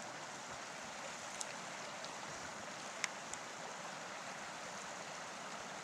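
Steady rush of running water, like a small moorland stream, with a few faint clicks.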